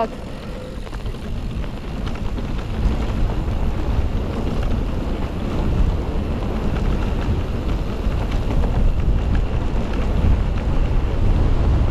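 Wind rushing and buffeting over a rider's microphone on a moving mountain e-bike, a rough low rumble that gets louder over the first couple of seconds and then stays loud.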